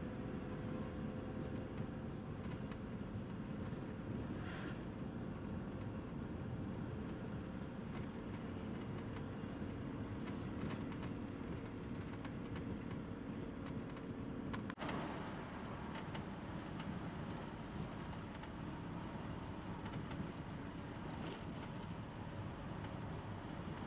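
Steady engine and road noise of a moving vehicle, with an abrupt change in the sound about fifteen seconds in.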